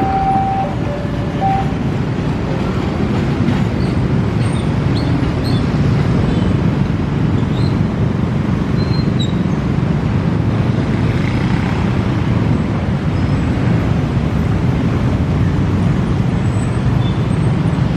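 Steady low rumble of a train of fuel tank wagons rolling away along the track, with a few faint high squeaks.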